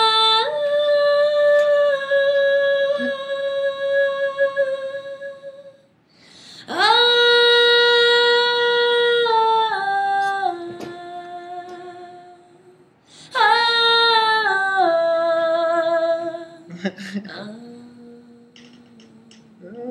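A woman's voice singing long held notes in three drawn-out phrases, each stepping down in pitch, then a lower held note near the end.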